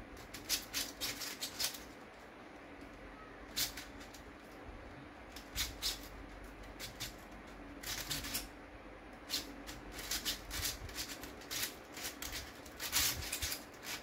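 3D-printed 2x2x14 cuboid twisty puzzle being turned fast in a speedsolve: its plastic layers clicking and clacking in quick, uneven flurries of turns with short pauses between.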